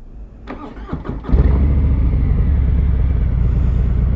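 Harley-Davidson Fat Bob's Milwaukee-Eight 114 V-twin cranking on the starter for under a second, then catching and settling into a loud, steady idle through Rinehart slip-on mufflers. The engine is already warm.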